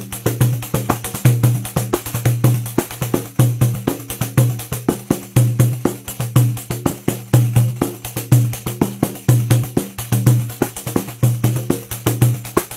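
Pandeiro played solo in a fast, steady groove: a dense run of jingle-and-head strokes, with deep bass tones from the drum head recurring about once a second.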